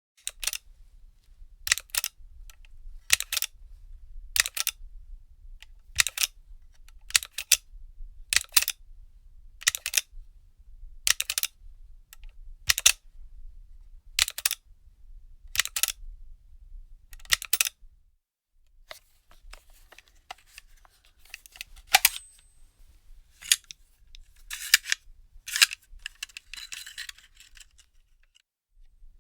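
Gun magazine being loaded by hand: a dozen or so sharp metallic clicks, about one every second and a half, as cartridges are pressed in one at a time. Near the end comes a stretch of looser metallic rattling broken by a few sharper clicks.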